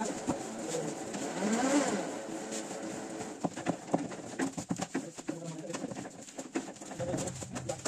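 Sheets of printed paper being handled, sorted and stacked on a table: a run of rustles and light taps.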